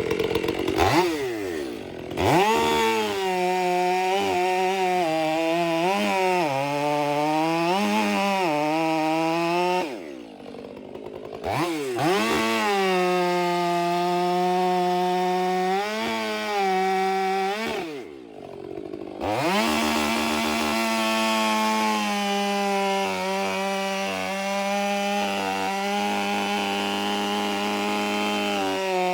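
Chainsaw cutting a tongue-and-groove cut into a fallen tree jammed against its stump. The engine revs up and down cut after cut, drops back toward idle twice, then holds steady at high revs through the last stretch.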